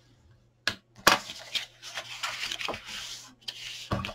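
Bone folder scoring black cardstock: a sharp tap, then a scratchy scrape of about two and a half seconds as the tip is drawn along the card. Another tap comes near the end.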